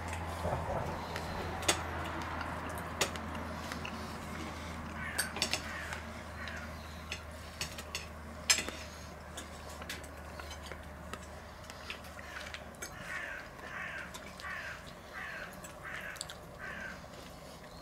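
A man chewing a fresh fig with its skin, close to the microphone, with wet mouth clicks and a run of chewing sounds at about two a second near the end. A few sharp clicks stand out.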